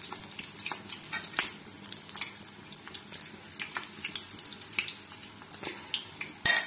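Besan batter tikkis shallow-frying in hot oil on a tawa: a steady sizzle full of quick, sharp crackles and pops. A louder single knock comes near the end.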